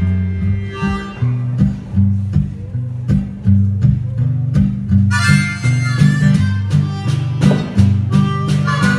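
Acoustic guitars strumming a steady rhythm over stepping low bass notes, with a harmonica playing the melody. The harmonica comes in loudest about five seconds in and again near the end.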